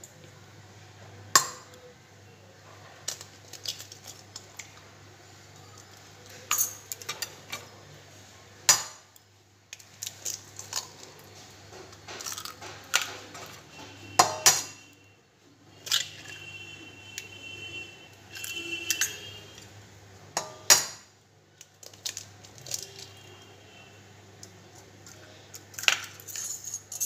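Eggs being cracked one after another on the rim of a metal bowl: a series of sharp taps and metallic clinks, a few of them ringing briefly.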